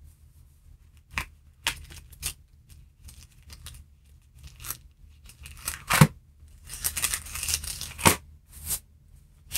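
Thin Bible pages being leafed through: a series of short papery rustles and flicks, the sharpest about six and eight seconds in.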